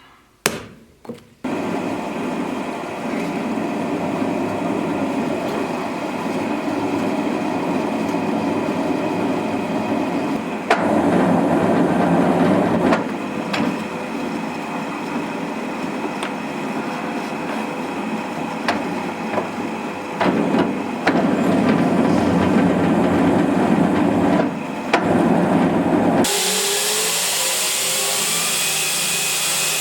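A workshop power tool running steadily, with a workpiece pressed against it, louder in two longer stretches. About four seconds from the end the sound turns to a brighter hiss with a gliding tone.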